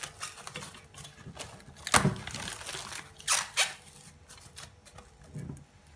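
Plastic cling film crinkling and crackling as it is stretched over a glass bowl and pressed down around the rim, with the sharpest crackle about two seconds in and a couple more a little after three seconds.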